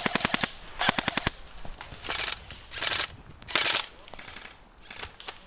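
Airsoft guns firing rapid full-auto bursts, with two quick rattling strings of shots in the first second and a half. Several shorter, less distinct bursts of noise follow.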